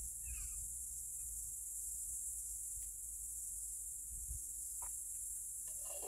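Steady high-pitched chorus of insects, crickets or cicadas, over a faint low rumble.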